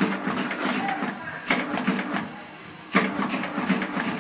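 Incense-stick making machine running: a continuous mechanical clatter, with a sharp clack about every one and a half seconds.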